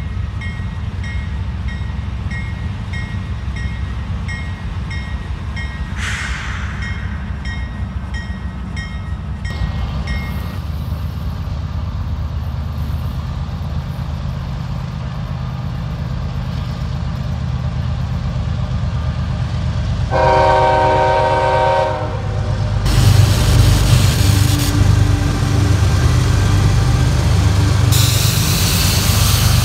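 Diesel train with a steady low engine rumble, and a bell ringing about twice a second for the first ten seconds. One horn blast of about two seconds comes around twenty seconds in, then the train gets louder with a hiss of wheels on rail as it passes close.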